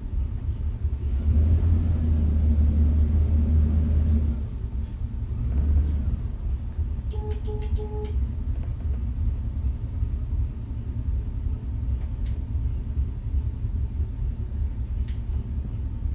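A cruiser's twin inboard engines running at low speed, a steady low rumble that swells for a few seconds near the start. About seven seconds in come three short electronic beeps.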